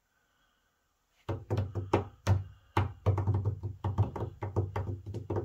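Near silence for about a second, then music with a heavy bass line and a fast, sharp percussive beat.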